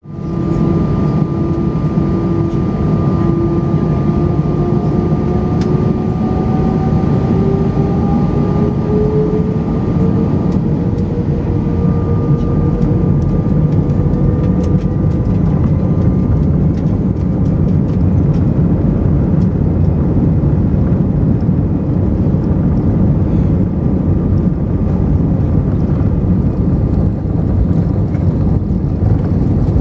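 Airbus A320 jet engines heard from inside the cabin over the wing, spooling up with a whine that rises in pitch over the first ten seconds or so. It settles into a steady loud roar with low rumble and scattered knocks from the runway, as on a takeoff roll.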